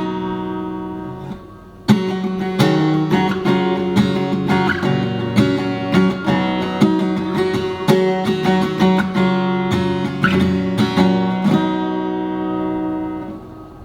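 Maton acoustic guitar played through a Tonewood Amp effects unit mounted on its back. A chord is struck about two seconds in, followed by a run of plucked notes and strummed chords. The last chord is left ringing and fades near the end.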